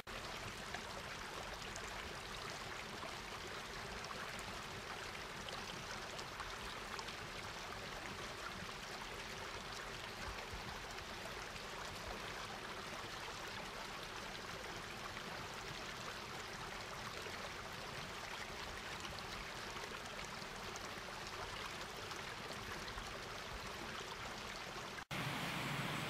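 Water rushing over a small cascade of moss-covered rock steps, a steady, even rush. It cuts off abruptly near the end.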